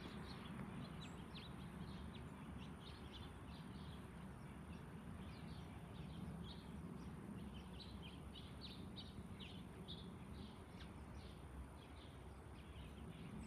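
Small birds chirping in quick, repeated short notes over a steady low rumble from a jet airliner flying high overhead.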